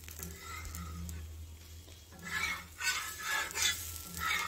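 A spatula scraping and sliding under a dosa on a hot dosa tawa to loosen it for flipping, in several rough scraping strokes in the second half, over a faint sizzle of the frying dosa.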